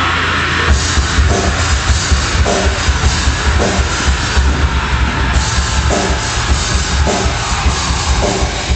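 Loud heavy rock music with fast, pounding drums.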